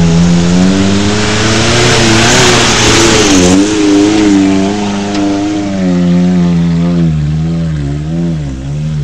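Off-road 4x4's engine revving hard under load as it climbs a hill, its pitch wavering up and down as the throttle is worked, with quicker dips and rises near the end. A loud rushing noise joins it for a second or so a few seconds in.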